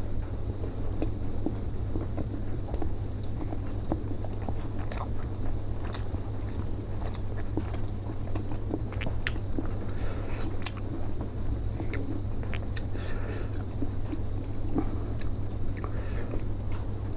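A person biting and chewing steamed chicken momos close to the microphone, with scattered short wet mouth clicks, over a steady low hum.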